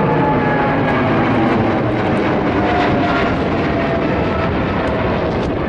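Boeing 777F freighter's twin GE90 turbofan engines climbing out after takeoff directly overhead: loud, steady jet engine noise with a whine that slowly falls in pitch as the plane passes and moves away.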